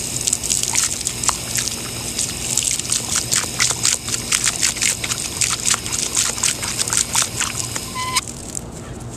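Yellow Labrador snapping and lapping at a stream of water from a garden hose: rapid irregular splashes and slurps over the steady hiss of the spray. The splashing stops near the end, where a brief high-pitched squeak sounds once.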